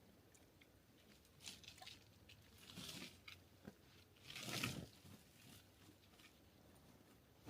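Near silence broken by a few soft crunching rustles, the loudest about four and a half seconds in.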